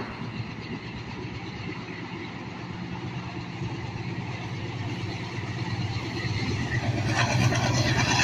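Diesel freight locomotive approaching, its engine running with a steady low throb that grows steadily louder. Near the end a wider rumble of engine and wheels swells as it draws close.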